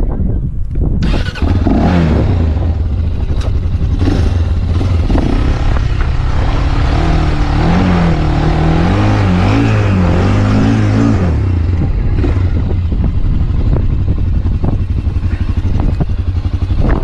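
Quad (ATV) engine revving hard under load as it is driven up out of a dirt trench, its pitch rising and falling repeatedly, then dropping to a lower, steadier run about eleven seconds in.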